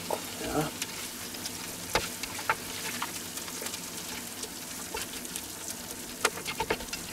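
Oil and tomato paste sizzling in a cast-iron Dutch oven while a spoon scoops the fried onions out, clicking and scraping against the pot and bowl several times.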